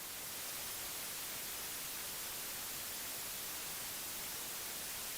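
Steady static hiss, an even noise with no tone or voice in it, strongest in the high pitches.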